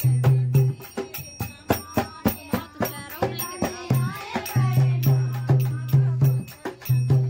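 Folk music played live: a dholak drum beats a fast, rattling rhythm under women's voices singing, the singing clearest about halfway through.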